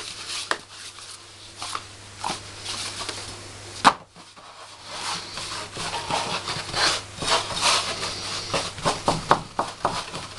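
Hands working pizza dough on a floured counter: rubbing, patting and pressing the dough out in a round pizza pan. A single sharp knock about four seconds in, and a quick run of taps near the end.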